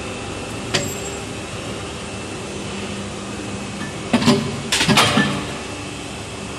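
Chen Hsong injection moulding machine running with a steady hum, a sharp click near the start. About four seconds in comes a loud burst of metallic clanks and clatter as the mould's core pulls move and the two moulded PP skew tees come off the cores.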